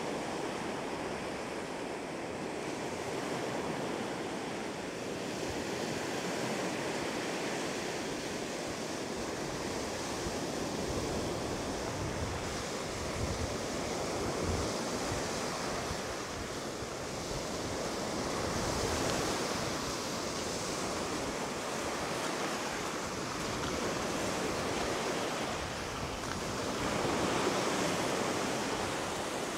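Lake waves breaking and washing up on a pebbly shore, the surf swelling and easing every few seconds, with some wind rumble on the microphone.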